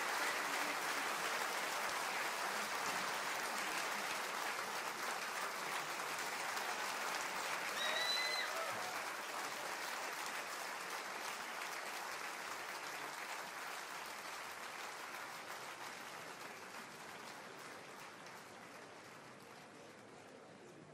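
Theatre audience applauding at the end of a concert, a dense steady clapping that slowly fades away. A brief high-pitched call rises above the clapping about eight seconds in.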